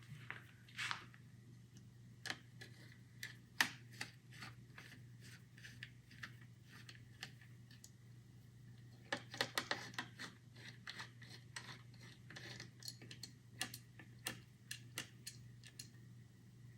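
Faint, scattered clicks and light metallic ticks of a screwdriver turning a small screw to fasten a motherboard M.2 heatsink, with a quick run of clicks about nine seconds in, over a low steady hum.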